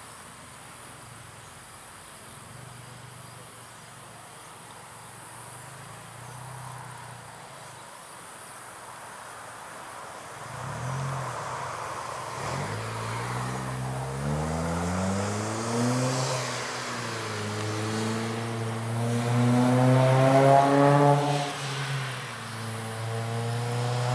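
An engine speeding up: its pitch climbs, dips about two-thirds of the way through, climbs again to its loudest point, then drops back and holds steady. Insects chirp faintly underneath, with a low hum before the engine comes in.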